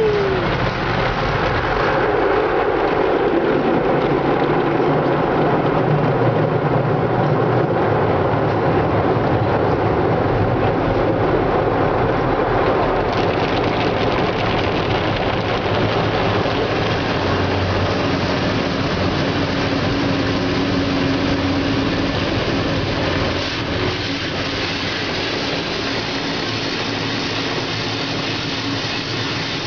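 Automatic car wash running: a steady rush of spraying water and machinery noise, easing slightly about two-thirds of the way through.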